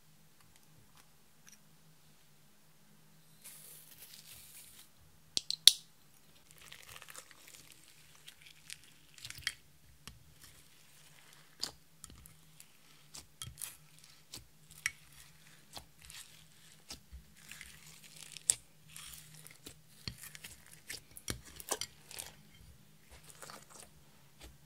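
Clear slime loaded with glitter and makeup being kneaded and squeezed by hand, making irregular wet crackling, popping and squelching sounds. Near the start there is a short scraping rustle and two sharp clicks, the loudest sounds. A faint steady low hum runs underneath.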